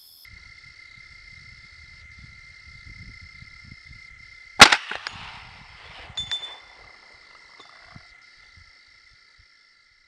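A single 300 Blackout rifle shot, sharp and loud, about four and a half seconds in, followed by a few fainter knocks around six seconds. A steady high-pitched whine runs underneath.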